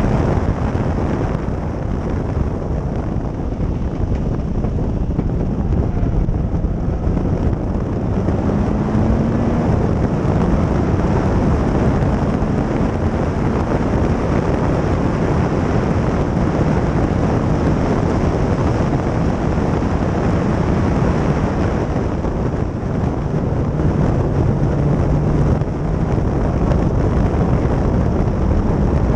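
Ginetta G4 race car's 1500cc engine running at speed on track, heard from on board with wind noise on the microphone.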